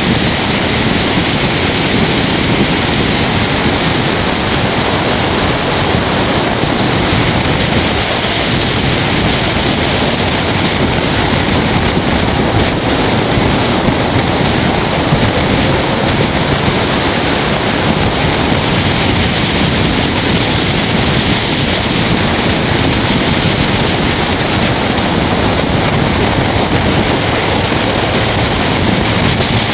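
Steady loud rush of wind and road noise from a race car driving at speed, heard through a camera mounted outside on the front bonnet.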